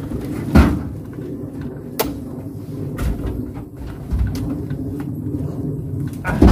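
Oil palm fruit bunches being speared with long-handled spiked poles and thrown into a truck: a few heavy thuds and knocks, the loudest about half a second in and others near two, three and six and a half seconds.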